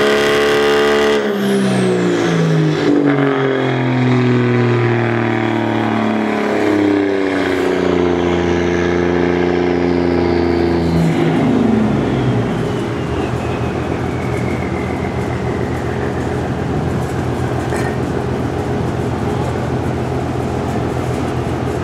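Truck engine running on a chassis dyno, held at high revs with its pitch stepping down a couple of times, then falling to a steady idle about twelve seconds in. A faint high whine slides slowly down in pitch underneath.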